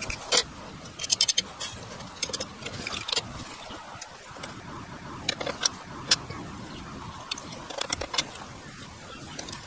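Hand woodworking: wooden pieces and hand tools being handled, giving irregular light clicks and taps in short clusters over a steady background hiss.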